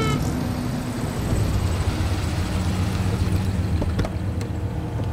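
Car engines running slowly in a low, steady rumble as the cars roll to a stop. The tail of a police siren's falling wail cuts off right at the start, and two faint clicks come about four seconds in.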